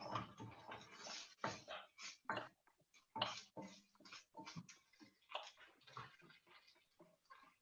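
Chopped onions with garlic and ginger paste cooking in an oiled frying pan as they soften: a run of irregular crackles and scrapes, several a second, from the frying and stirring.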